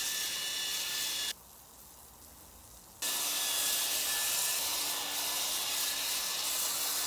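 Machine polisher running with a coarse 40–50 grit polishing pad, grinding the surface of a cured concrete countertop flat: a steady motor whine over a grinding hiss. It drops out abruptly about a second in and comes back just as suddenly under two seconds later.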